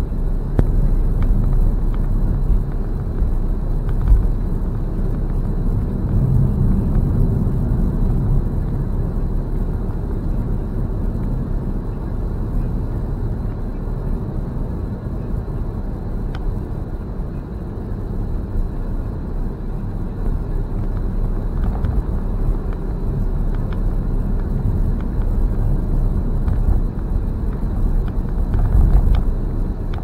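Car driving, heard from inside the cabin: a steady low rumble of engine and tyres on the road.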